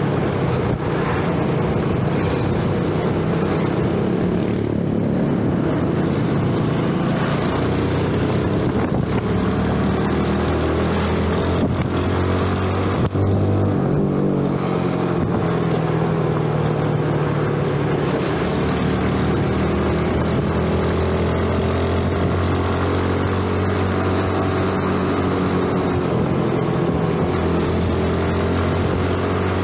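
Yamaha underbone motorcycle's single-cylinder engine running while riding, its pitch rising and falling with throttle and gear changes.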